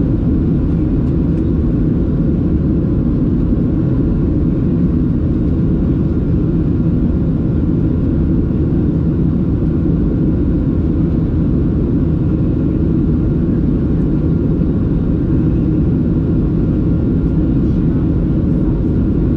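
Cabin noise inside a Boeing 737-700: a steady, even low rumble of its CFM56 jet engines and the airflow past the fuselage, with a faint steady whine above it and no change in level.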